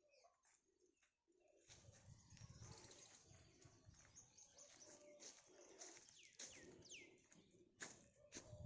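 Faint birds calling in the garden: short sharp chirps, a few sliding down in pitch, over a low rumble that starts about two seconds in.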